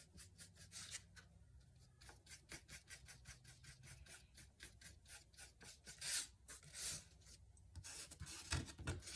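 Paintbrush bristles rubbing across a canvas panel in a quick run of short, faint scratchy strokes, with a couple of longer, louder scrapes. Near the end the canvas slides on the board beneath as it is turned.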